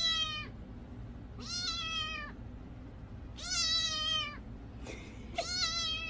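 Kitten meowing over and over: long, high meows about two seconds apart, each dropping in pitch at the end.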